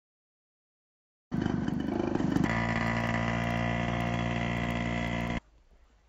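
A motor running with a steady, fixed-pitch hum. It starts suddenly, grows rough at first and then settles, and cuts off abruptly after about four seconds.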